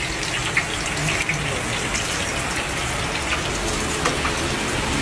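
Hot oil sizzling steadily with scattered crackles and pops as batter is piped from a metal press into a wide pot and deep-fries.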